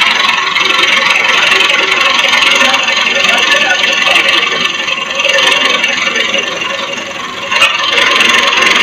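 A tractor's engine idling steadily, with a single sharp knock about seven and a half seconds in.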